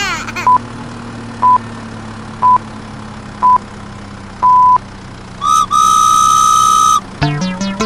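Sound effects: five electronic beeps a second apart, four short and a longer fifth, in a race-start countdown pattern, then a steady whistle tone held for about a second and a half. Music with plucked notes starts near the end.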